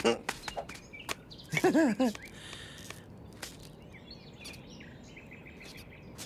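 A cartoon character's brief wordless vocal sound, its pitch sliding up and down, about one and a half seconds in. Later come quick, faint, high bird chirps over a light outdoor background.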